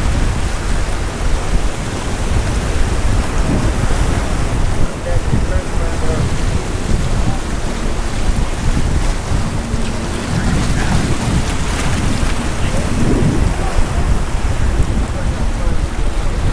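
Wind buffeting the microphone, a steady low rumble, over ocean surf washing and breaking against the rocks.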